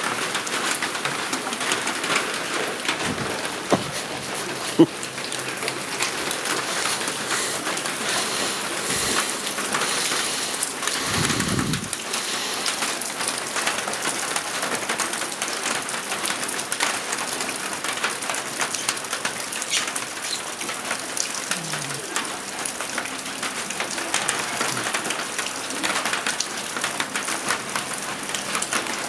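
Heavy rain falling steadily, a dense patter of drops on surfaces, with a couple of sharp clicks about four and five seconds in and a short low thud around eleven seconds.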